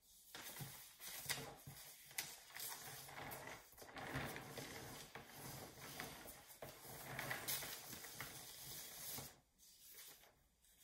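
Faint rustling and scraping with scattered small clicks as a sculpting turntable is rotated on a paper-covered table and the plaster-repaired sculpture is handled. It stops about nine seconds in.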